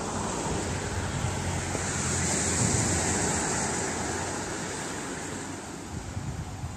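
A car passing on the road: a rush of tyre and road noise that swells to a peak about halfway through and then fades away.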